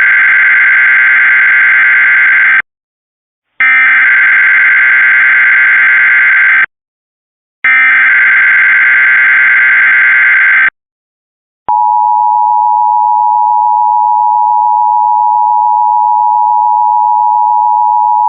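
Emergency Alert System SAME header: three long bursts of harsh digital data tones, each about three seconds with a second of silence between. About twelve seconds in they give way to the steady two-tone EAS attention signal. The header bursts are unusually long because the flash flood warning lists many counties.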